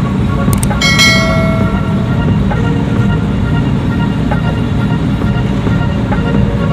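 Steady low rumble of a cargo ship under way, its diesel engine drone mixed with the churning wake. About a second in comes a click and a short ringing chime.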